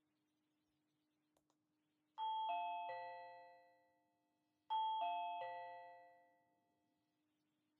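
Reolink video doorbell chime: a three-note descending ding-dong-dong played twice. Each note rings on and dies away over a second or two.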